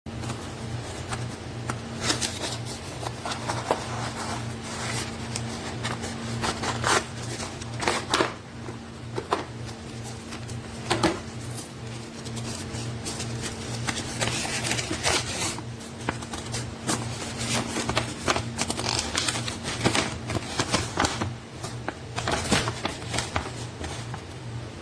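Irregular clicks, knocks and rustles, like something being handled and set down, over a steady low hum.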